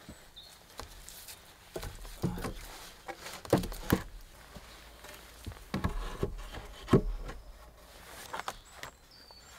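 Wooden logs knocking and thudding against each other as they are shifted and laid onto a log-roofed shelter, several irregular knocks with rustling of bark and debris between them.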